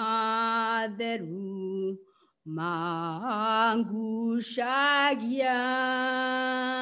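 A woman singing a hymn solo and unaccompanied in Kikuyu, in long held notes with slides between pitches and a short pause for breath about two seconds in.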